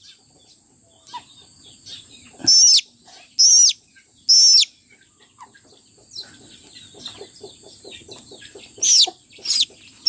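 Young chick peeping loudly while being handled for eye treatment, five short shrill calls with a wavering pitch, three close together early on and two near the end. Faint quick low clucking runs in the background.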